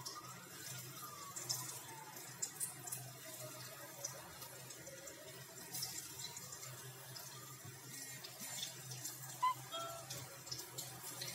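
Soyabean-and-potato kofta balls deep-frying in hot oil in a kadai: a steady sizzle with many small crackles and pops.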